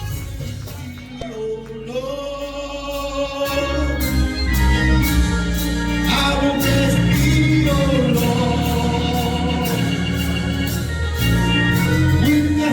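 Gospel music: singers with a band playing bass and drums, a steady beat.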